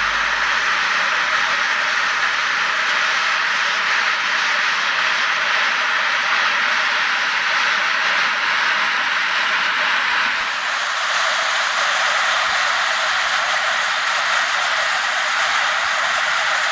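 Steam hissing steadily out of a fumarole, a geothermal steam vent, with a slight change in tone about ten seconds in.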